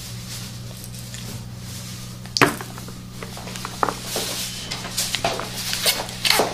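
Plastic baby toys being handled, clicking and knocking, with one sharp knock about two and a half seconds in and scattered smaller clicks near the end, over a steady low hum.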